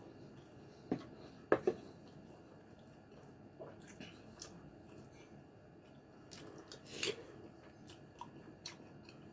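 Close-up eating sounds: chewing pork stew and rice, with a few sharp clicks and knocks from a metal spoon scooping in a wooden bowl, the loudest two about a second and a half in.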